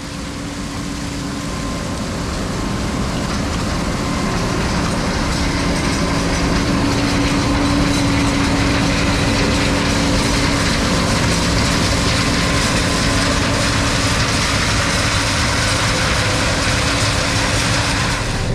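John Deere 9610 Maximizer combine harvesting corn: its 275 hp diesel engine and threshing machinery drone steadily under a busy rattle from the corn head and feeders. The sound fades in over the first few seconds.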